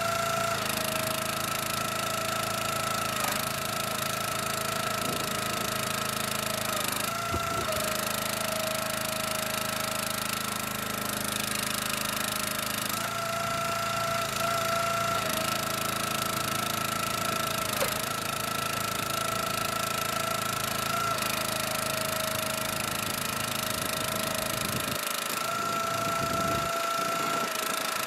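Small gas engine of a hydraulic log splitter running steadily, its pitch sagging briefly several times as it comes under load while logs are split.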